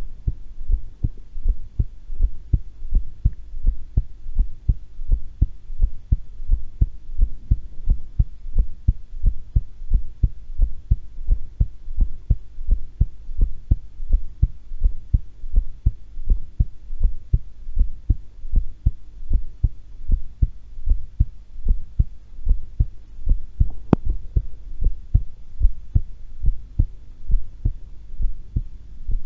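A woman's heart beating, a steady, even rhythm of low thuds. A faint steady hum runs underneath, and a single sharp click comes about four-fifths of the way through.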